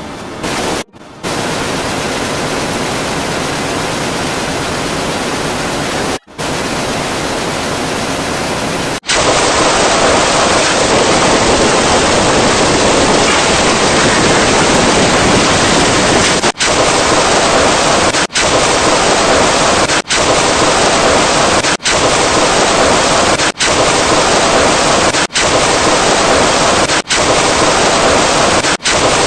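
Loud, steady static-like noise in a run of back-to-back segments, each cut off by a brief dropout. About nine seconds in it gets louder and harsher. After that the segments repeat every second and a half to two seconds.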